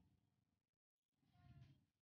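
Near silence: a dead-quiet gap, then a faint low rumble about a second in.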